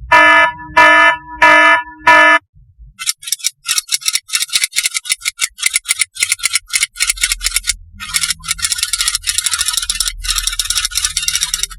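Four short electronic beeps about two-thirds of a second apart, then a long run of fast rattling clicks, with a low hum joining under it about halfway through.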